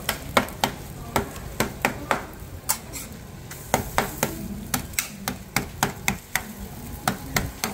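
Metal spatula clacking and scraping on a flat steel griddle while scallion pancakes are pressed and turned, about two to three sharp taps a second with a short pause in the middle, over the sizzle of frying.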